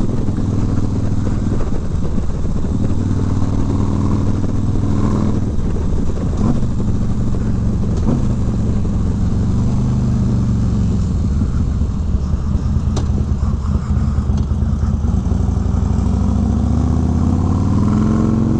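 Harley-Davidson FLHT Twin Cam V-twin with a Vance & Hines Pro Pipe exhaust, heard from the rider's seat at highway speed. The revs fall and rise several times and climb again near the end as the bike accelerates.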